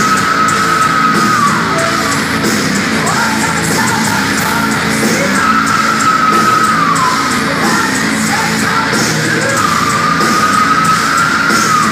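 A live heavy metal band heard from within the crowd, loud and dense with a steady drum beat. A voice holds long high notes, three times, each one bending down at its end.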